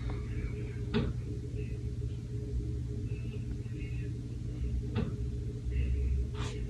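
Steady low hum of room noise, with a few faint brief clicks.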